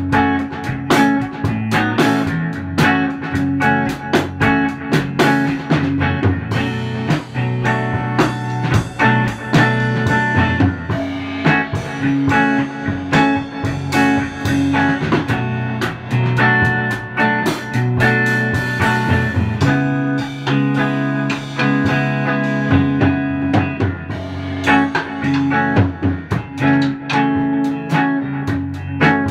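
Electric guitar, a Fender Stratocaster through a Fender Princeton Reverb amp, jamming with a drum kit, the guitar playing many quick notes over steady drum hits.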